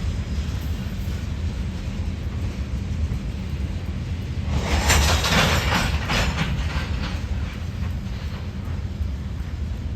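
EMD GP60 diesel-electric locomotive's two-stroke V16 diesel running under power with a steady low rumble as the train moves. About four and a half seconds in, a louder burst of clattering rail noise lasts for roughly two seconds.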